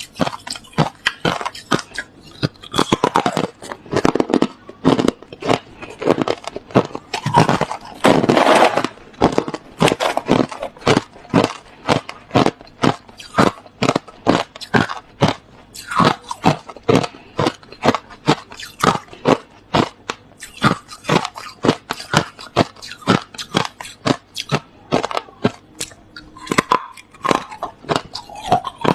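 Close-up chewing of hard crushed ice: a steady run of sharp crunches, about two a second, with heavier grinding bites a few seconds in and again near the middle.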